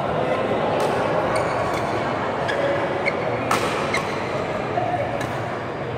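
Badminton rally: sharp cracks of rackets striking the shuttlecock, about one a second, the loudest about three and a half seconds in, over the steady background noise of a large indoor hall.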